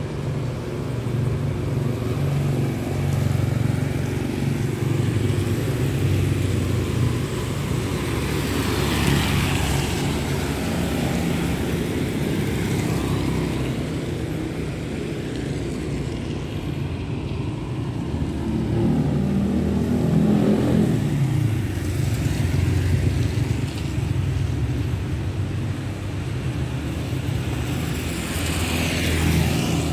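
Traffic passing on a wet street: vehicles swish by on the wet asphalt about a third of the way in and again near the end, and an engine swells and fades just after the middle, over a steady low rumble.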